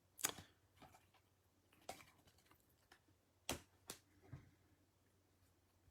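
Baseball trading cards being handled and flipped through: a few faint, separate clicks and flicks of card stock, the loudest about three and a half seconds in.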